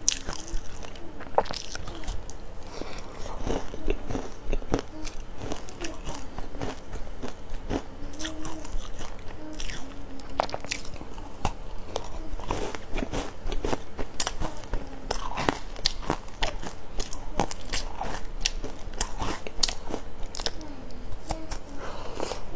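Close-up eating sounds of biting into and chewing a flaky filled pastry, with many irregular sharp clicks of the crisp crust breaking.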